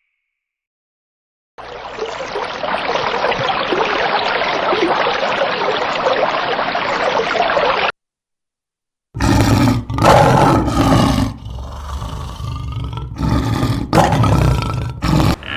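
A big cat growling and roaring in a run of loud, low calls broken into several bursts over the last six seconds. Before it, a separate stretch of steady rushing, hiss-like noise lasts about six seconds, then cuts off.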